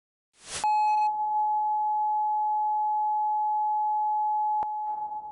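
A single steady electronic beep, a pure tone held level for about four seconds. It starts after a brief rushing noise, and a sharp click near the end drops it to a quieter tone.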